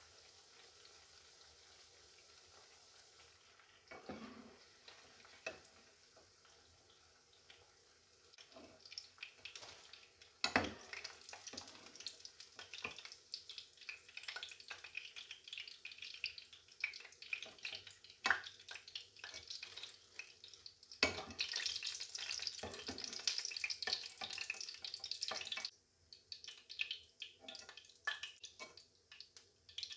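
Potato snacks frying in hot oil in a pan: a faint hiss at first, then sizzling and crackling broken by sharp knocks of a utensil against the pan as the pieces are turned and lifted out. The sizzle is loudest near the end, then drops off suddenly, leaving scattered crackles.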